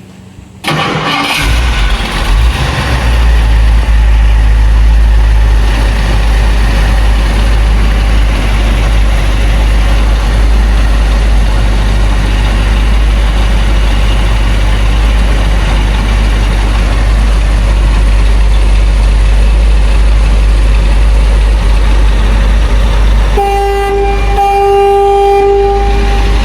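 The 1962 Ford Thunderbird's 390 V8 running loud with a deep low rumble through its new exhaust, coming in abruptly about a second in. Near the end a car horn sounds, one steady blast of about three seconds.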